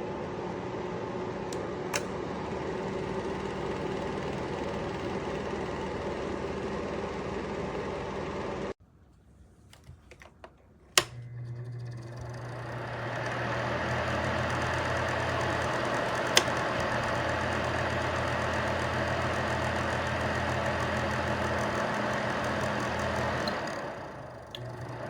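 Rintuf 1500W PTC ceramic space heater's fan blowing steadily. Partway through the sound cuts out, there are a few light clicks and one sharp click, and the fan then builds up over a couple of seconds to a louder steady whir with a low hum.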